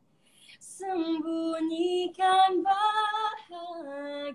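A young woman singing unaccompanied, one sung line that starts about a second in after a short pause, holding each note, the melody stepping down near the end.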